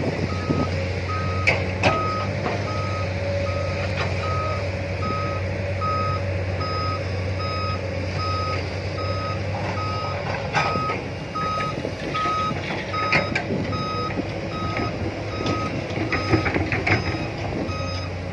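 A heavy-equipment diesel engine runs steadily under load while an excavator digs and loads soil into a dump truck. A warning alarm beeps at an even, unbroken pace throughout. A few sharp knocks come from the bucket and the dumped soil.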